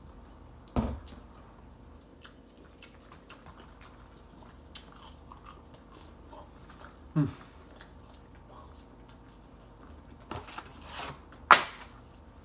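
A person chewing and biting into chicken nuggets, with small wet mouth clicks. A few short louder sounds stand out: one about a second in, one with a falling pitch about seven seconds in, and a cluster near the end, the loudest of them close to the end.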